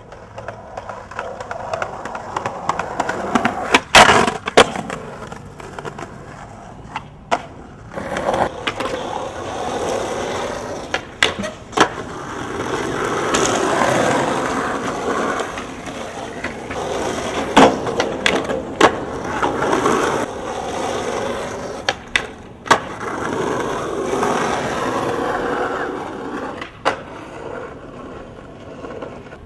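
Skateboard wheels rolling on concrete, swelling and fading several times, broken by about half a dozen sharp clacks of the board popping, landing or slapping the ground.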